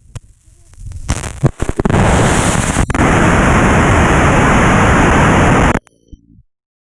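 Loud static from a faulty GoPro Hero 5 Session audio track. Crackles and pops come out of dead silence and build over about two seconds into a steady roar of noise, which cuts off abruptly near the end, typical of the camera's recording fault.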